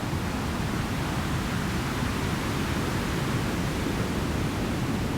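White noise from Ableton's Operator synth, run through a band-pass filter and playing as a steady, even hiss heavy in the lows: the raw material of a synthesized wind sound.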